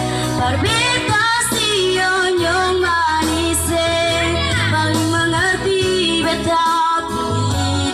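A woman singing an Ambonese pop song in a high voice with pitch slides and held notes, over electronic keyboard accompaniment with a steady bass line.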